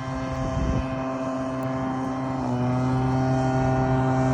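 An engine running steadily with an even drone, its pitch stepping up slightly about two and a half seconds in.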